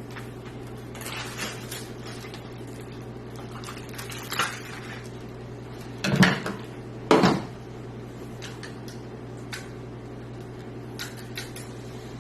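Metal computer-case parts being handled while fitting a drive: scattered light clicks and clanks, with two louder metallic clatters about six and seven seconds in, over a steady low hum.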